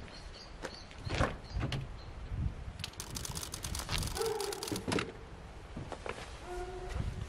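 Footsteps, then an SUV's front door opening, with clunks and rustling as a backpack is moved in against the door and seat.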